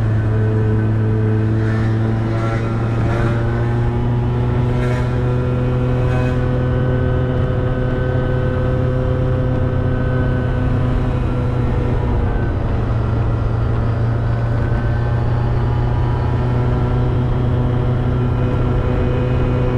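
Motorbike engine running steadily while being ridden, its pitch climbing slowly, dipping about twelve seconds in, then climbing again, over a low rumble of road noise.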